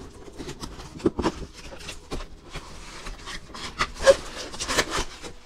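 Toy packaging being opened by hand: cardboard box and clear plastic crackling and rustling in a quick run of clicks and crinkles, with a few sharper snaps about a second in and again about four seconds in.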